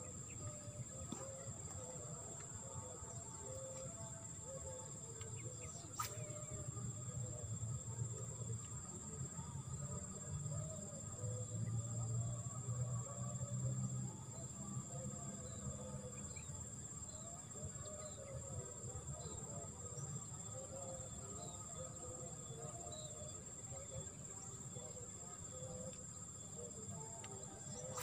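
Steady high-pitched insect drone over a low rumble that swells in the middle. Faint short chirps come and go, and there is one sharp click about six seconds in.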